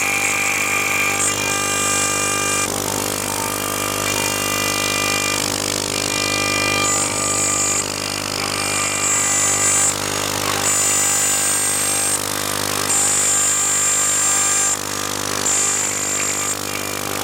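CNC machine running: a steady motor hum with a high whine that starts and stops every second or two.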